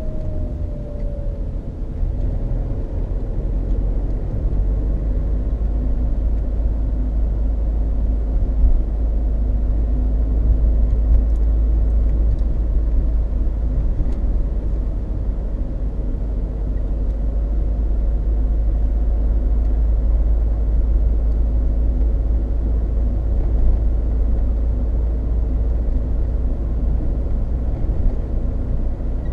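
Peugeot 306 2.0 HDi driving on Dunlop Sport BluResponse tyres, with a steady, loud, deep rumble of tyre road noise. The owner finds this noise unusually loud, with every bump heard, though bearings, suspension, balance and alignment have been checked, and asks whether tread wear could cause it.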